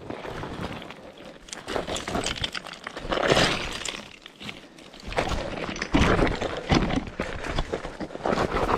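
Boots crunching and sliding on loose rock and gravel down a steep slope, in irregular scrapes. In the second half the scraping grows louder, with heavy thumps as the hiker slips on the scree.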